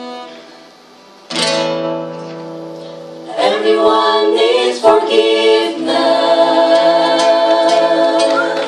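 Acoustic guitar strumming a chord that rings out. A few seconds in, voices join and sing long held notes over the guitar, closing a worship song.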